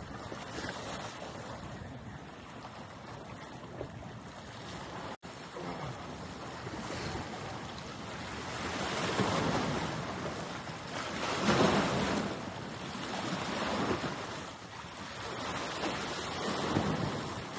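Rushing noise of bay water and wind, rising and falling in several swells, with wind buffeting the microphone. It breaks off for an instant about five seconds in.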